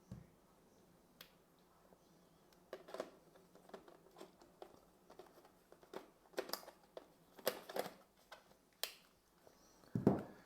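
Small items of a camera sensor-cleaning kit and their packaging being handled: irregular light clicks, taps and crinkles, more frequent in the second half.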